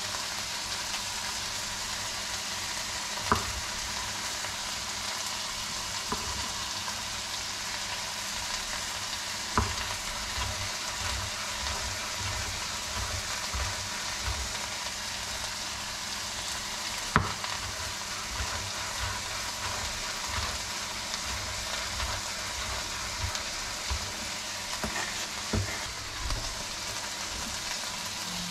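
Chef's knife cutting tomatoes on a bamboo cutting board: a few sharp knocks of the blade on the wood in the first half, then a run of quicker chopping knocks, over a steady hiss.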